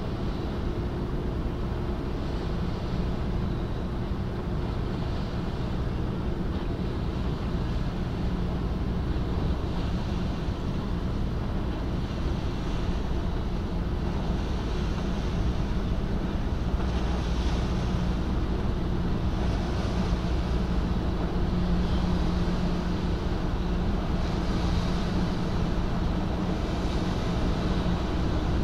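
Low steady drone of the Sakurajima car ferry Dai-16 Sakurajima Maru's engines as it passes close by, growing a little louder in the second half. Wind buffets the microphone and water washes along its hull.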